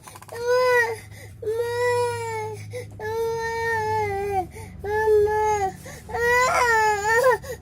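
A young child crying in a run of about five long, high wails, each held for about a second, with short breaks for breath between them.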